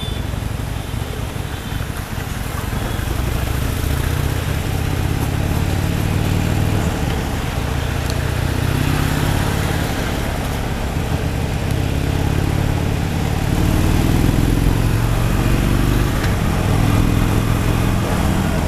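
Harley-Davidson Sportster 883 Superlow's air-cooled V-twin engine running while riding, its note rising twice as it accelerates. Underneath is a steady hiss of wind and tyres on the wet road.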